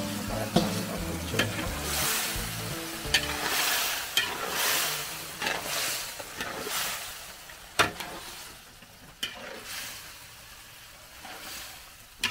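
Food sizzling in a pan while it is stirred, the stirring strokes swelling about once or twice a second. A few sharp knocks of utensil on pan stand out, the loudest about eight seconds in. The stirring grows fainter in the last few seconds.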